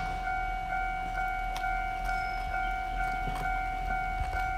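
Railway level-crossing warning bell ringing steadily, a repeating electronic ding about twice a second. It signals that the crossing is closed for an approaching train.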